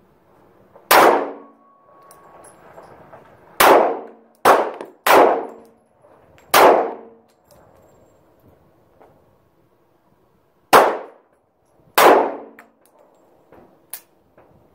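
.45 pistol fired seven times at uneven intervals: four shots close together, a pause of about four seconds, then two more. Each shot has a short metallic ring after it.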